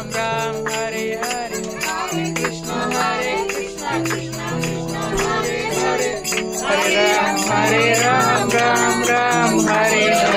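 Devotional kirtan: voices singing a chant over steady held low notes, with jingling percussion.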